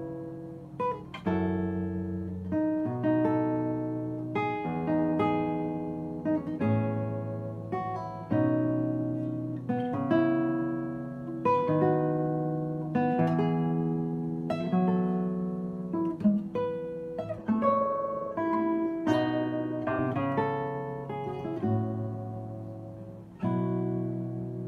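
Nylon-string classical guitar played solo, fingerpicked: a flowing line of plucked melody notes and chords over sustained bass notes, each note starting sharply and ringing away.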